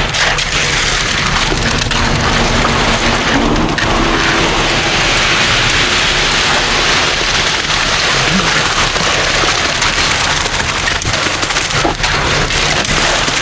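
Wet concrete being poured and spread: a steady, loud rushing noise, with an engine running low underneath.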